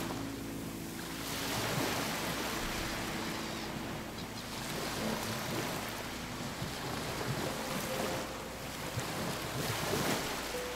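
Sea waves washing against a rocky shore, swelling and easing every few seconds, with wind buffeting the microphone.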